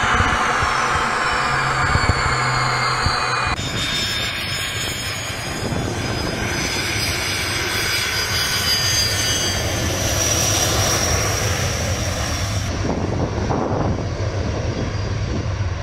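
Sukhoi Su-25 jet engines running on the runway: a steady rumble with a high whine that shifts in pitch, in several spliced clips that change abruptly about 3.5 s and 13 s in.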